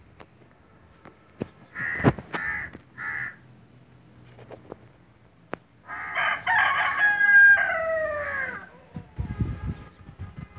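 A rooster crows once, about six seconds in: a long, loud call of nearly three seconds whose pitch falls away at the end. A few short bird calls come before it, about two seconds in.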